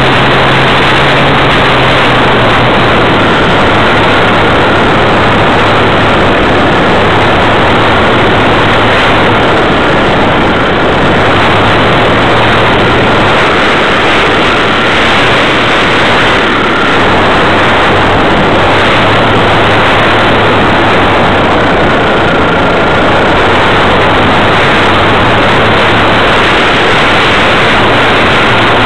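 Steady drone of the Wilga plane's engine and propeller, heard from a camera riding on the plane, mixed with loud wind rush over the microphone. The engine note holds nearly constant, with only slight shifts in pitch.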